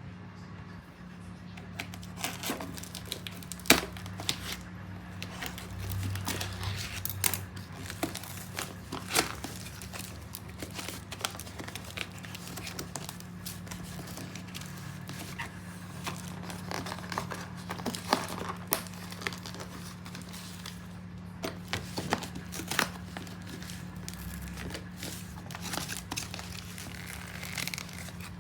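Packaging crumpled and torn open by hand: irregular rustles and crinkles with sharp tearing snaps, over a steady low hum.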